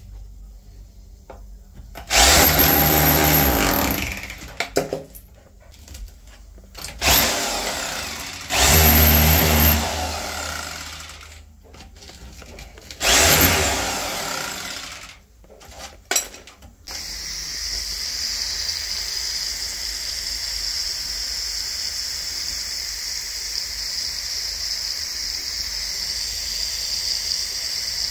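A power tool cutting or drilling into a tiled wall, run in four short bursts, then a steady hiss through the last ten seconds or so.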